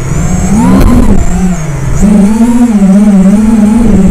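FPV racing quadcopter's motors and propellers buzzing loudly as heard from its onboard camera, the pitch rising and falling with the throttle and stepping up about two seconds in. Wind rumbles on the microphone underneath.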